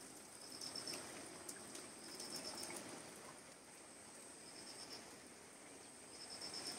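Heavy rain falling steadily on leaves and wet ground, a faint even hiss. Over it a short, high, rapidly pulsed chirp repeats four times, about every two seconds, and a thin steady high tone runs behind.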